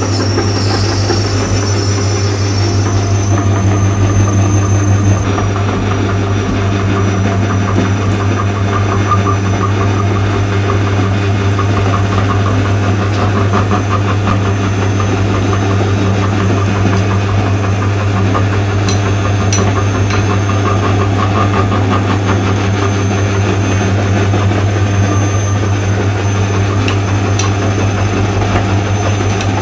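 Steady, loud low-pitched mechanical hum.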